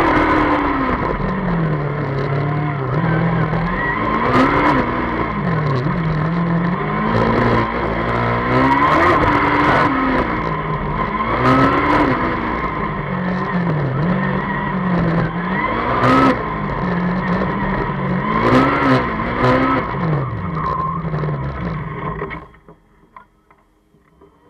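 Formula Student race car's engine heard onboard, revving up and down again and again as the car accelerates and brakes through a tight, twisting course, with a steady whine running underneath. The engine sound drops away about 22 seconds in.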